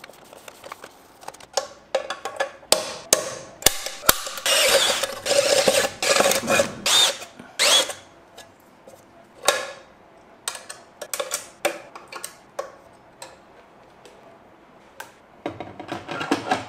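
Hand work on a mini mill's electrical box and DRO mounting bracket: a string of clicks, knocks and rattles of parts and tools, with a denser few seconds of rattling and scraping from about four seconds in.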